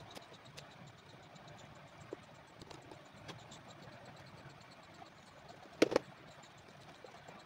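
Faint scraping and light tapping as a thin pointed tool picks crumbling old sole material off the bottom of a leather shoe, over a steady low background noise. About six seconds in there is a louder double knock.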